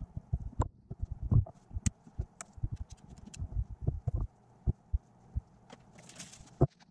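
Workbench handling noise: irregular clicks and knocks as small quadcopter frames and parts are picked up and set down on a silicone work mat, with a brief rustle about six seconds in.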